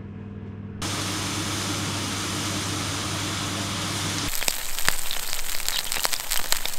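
Steak sizzling in a frying pan, a steady hiss with a low hum under it. About four seconds in it changes to a steak frying in a cast-iron pan over a wood fire, the sizzle now full of sharp crackles and pops.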